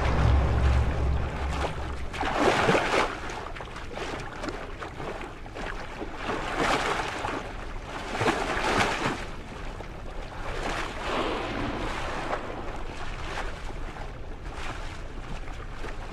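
Seawater rushing and splashing, churned by a humpback whale calf swimming at the surface, swelling and fading in surges every two to three seconds.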